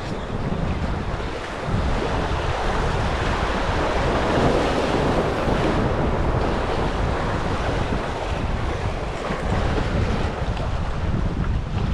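Sea surf washing on the shore with wind buffeting the microphone, louder from about two seconds in.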